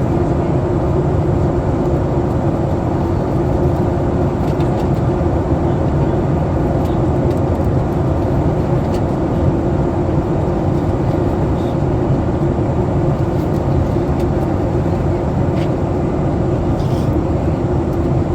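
Steady cabin noise inside a Boeing 737 MAX 8 in descent: a constant roar of airflow and the CFM LEAP-1B engines, with a steady low hum running through it.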